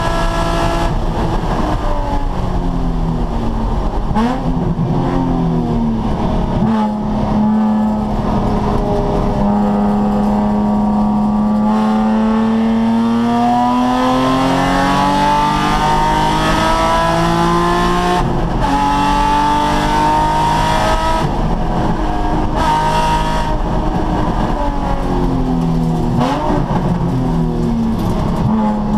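Nissan 350Z's 3.5-litre V6 engine under hard acceleration on a race track, its pitch climbing through the revs and dropping sharply at gear changes or braking several times.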